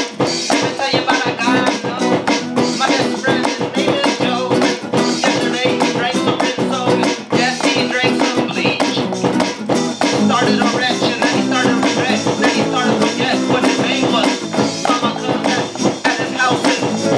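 Improvised live band music: amplified guitar and other instruments playing continuously while a man vocalizes loosely into a handheld microphone, with no clear words.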